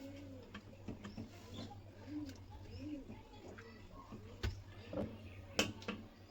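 Faint bird calls: a few short, low notes rising and falling, over a steady low hum, with a few light knocks.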